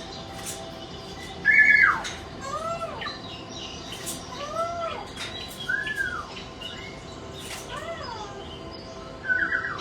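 Pet parrots calling: about six arched calls that rise and fall in pitch, a second or more apart, the loudest about one and a half seconds in and another near the end.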